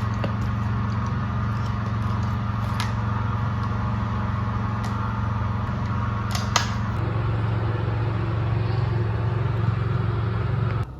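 A steady machine hum with a few light clicks; its tone shifts slightly about seven seconds in, and it cuts off abruptly near the end.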